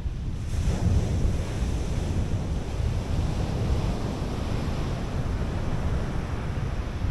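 Surf breaking and washing up a sandy beach, with wind buffeting the microphone in a heavy low rumble; the wash of a wave swells up about half a second in.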